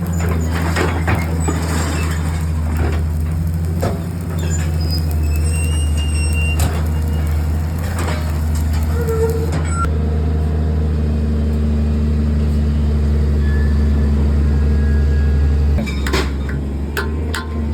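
An engine running steadily at a low, even hum, with scattered sharp knocks and clicks in the first few seconds and again near the end.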